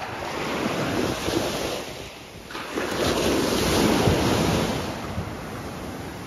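Small waves breaking and washing up a sandy beach, the surf rising and falling, with wind buffeting the microphone. The wash dips about two seconds in, then a bigger wave breaks and runs up the sand.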